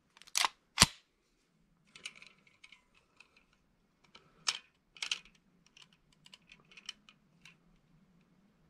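Metal clicks of a CZ TS2 pistol being handled. Two sharp clicks in the first second as the slide is racked back and snaps forward. Then lighter clicks and rattles as a trigger pull gauge is hooked on the trigger and pulled, with the sharpest clicks about four and a half and five seconds in.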